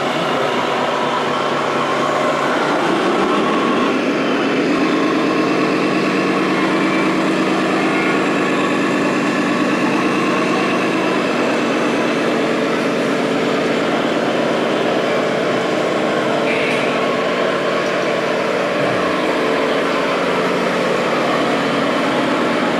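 Electronic engine sound modules of radio-controlled scale trucks playing simulated diesel truck engines, running steadily with a rising rev about three seconds in, over the hum of a busy hall.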